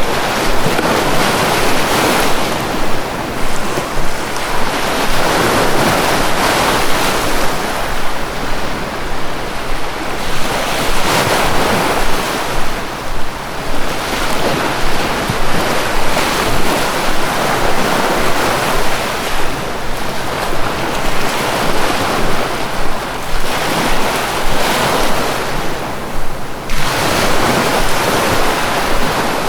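Sea waves washing in and breaking, a steady rushing that swells and recedes every few seconds, with a sharper surge near the end.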